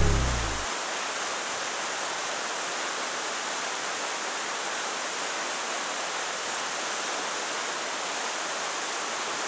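Steady rush of white water, an even hiss with little low rumble.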